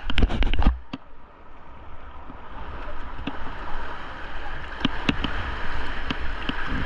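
Fast high-water river rushing and churning around a kayak, a steady whitewater noise. Several loud splashes and a deep buffeting rumble come in the first second, then a few sharp splashes from paddle strokes.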